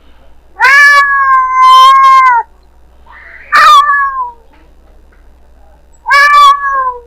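Domestic cat meowing three times: a long drawn-out meow, then two shorter meows that fall in pitch at the end.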